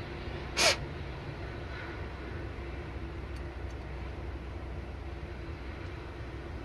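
Steady low background hum, with one short, sharp noise of handling about half a second in.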